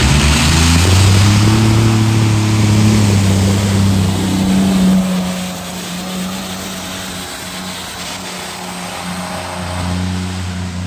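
Multi-engine modified pulling tractor running at full power as it drags the weight sled, its note rising slightly. About five seconds in the sound drops sharply and carries on at a lower level.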